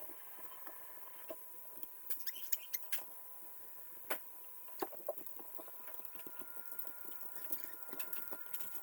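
Scattered light clicks and taps of small metal parts and tools being handled, over a faint steady hum.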